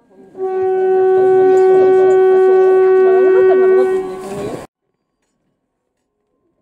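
A single long, steady horn blast from the narrow-gauge trolley train, held for about four seconds and then cut off abruptly.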